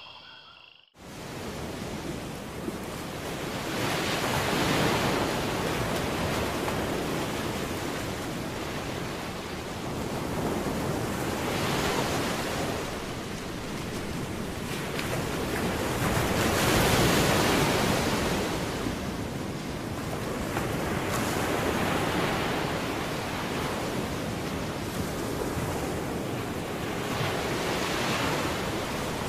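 Ocean surf: waves washing ashore, a rush of noise that starts about a second in and swells and eases roughly every five seconds.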